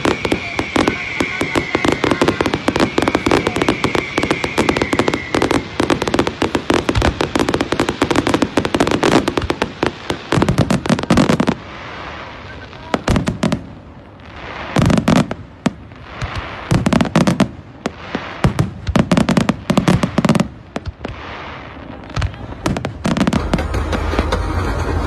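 Fireworks display: rapid crackling and bangs from many shells, dense through the first half, then in separate clusters with short lulls between. A steady low hum comes in near the end.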